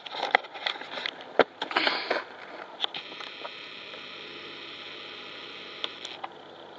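Handling noise from a handheld camera being turned and aimed: rustling, a few knocks on the body, the loudest about a second and a half in. About three seconds in it settles into a steady hiss.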